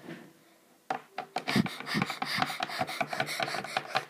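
Handling noise: a fast, uneven run of scratchy rubs and taps starting about a second in, from fingers moving right at the recording phone.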